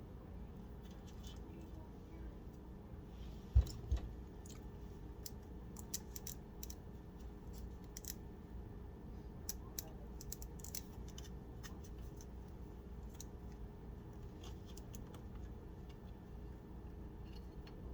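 Faint, scattered clicks and scratches of hands routing and fastening cables inside a PC case, with two dull low thumps about three and a half seconds in.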